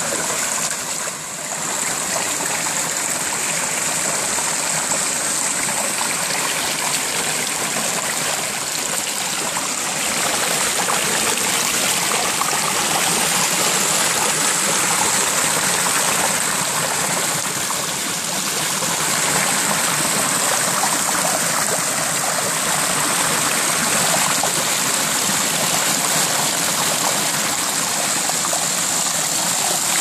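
Mountain stream rushing and splashing over boulders in small cascades, a steady loud rush of water that grows a little louder about ten seconds in.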